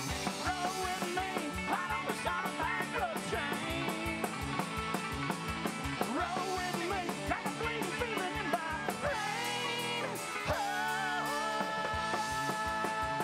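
Live band playing an up-tempo rock and roll song on electric guitar, upright bass and drums, with a steady beat.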